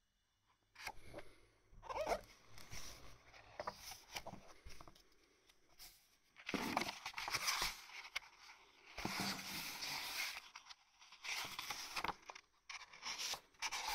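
Paper rustling and the handling of hardbound books as pages are turned and the volumes are moved about, in a string of irregular bursts that begin about a second in.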